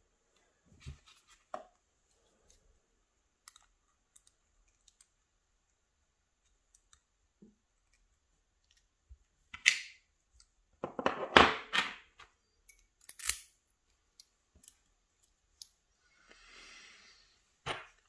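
Circlip pliers working the retaining clip off a lock cylinder: a few sharp metallic clicks and snaps, the loudest a cluster about eleven seconds in, with faint clicks of the cylinder being handled before it and a last sharp click near the end.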